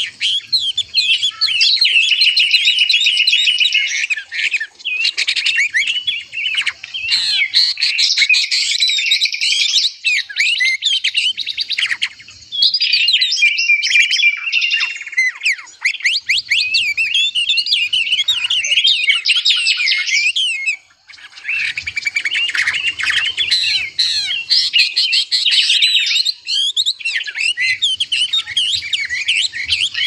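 Songbirds singing and chirping in a dense, continuous chorus of quick high twitters and trills, with a short break about two-thirds of the way through.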